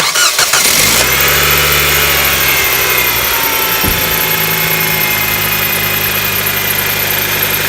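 Nissan Qashqai engine running with its auxiliary (serpentine) belt squeaking steadily over the engine hum, the sign of a worn belt that needs replacing.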